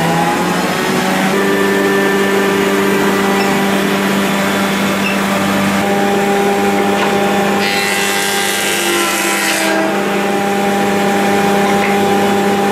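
Thickness planer running with a steady hum. About eight seconds in, a harsh hiss lasting about two seconds as the cutterhead planes a piece of wood.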